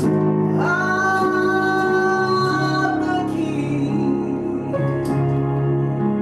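Live worship song by a church praise team, with keyboard and guitar accompaniment. About half a second in, one long held note comes in and lasts a couple of seconds.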